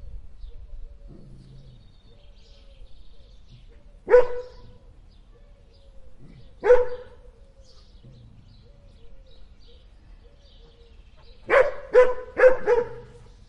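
Two dogs barking: a single bark about four seconds in, another about seven seconds in, then a quick run of four barks near the end.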